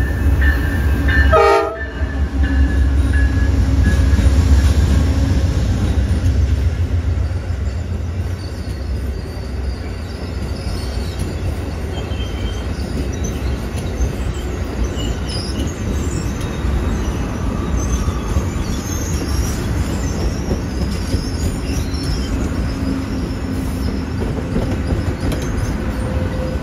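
Amtrak Silver Meteor diesel passenger train with a steady low rumble. Its horn sounds through the first several seconds, and faint high-pitched wheel squeal comes in during the second half.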